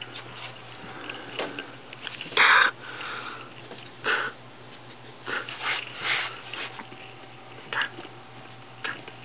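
A pet ferret scratching at something, heard as short scattered scrapes, the loudest about two and a half seconds in.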